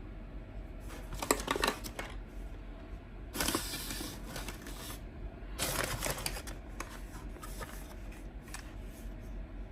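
Product packaging being handled during an unboxing: three bursts of paper and cardboard rustling, the middle one the longest, followed by a few light clicks and taps.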